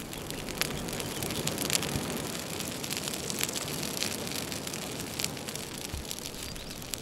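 Open wood fire burning: a steady hiss with scattered sharp crackles and pops.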